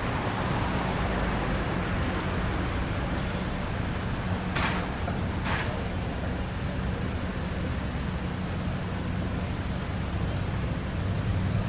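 Steady road traffic noise from a busy multi-lane avenue, a continuous low rumble of car engines and tyres. Two short hisses come about a second apart near the middle.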